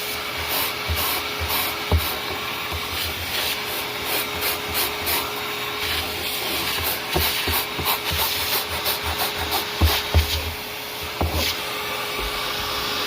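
Short wire cat brush scraping along a velcro strip in quick repeated strokes, a few a second, with a vacuum cleaner running steadily underneath.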